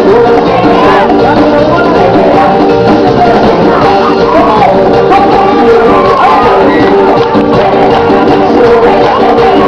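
Loud, continuous band music with singing.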